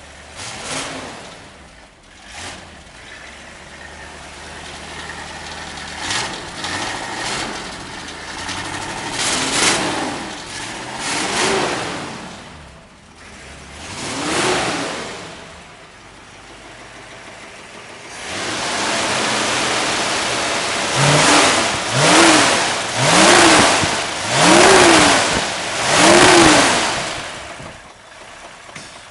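Ford 302 V8 in a 1959 Ford F100 running and being revved: a few separate revs rising and falling in pitch, then, about two-thirds of the way in, a louder stretch with a run of about five quick throttle blips one after another.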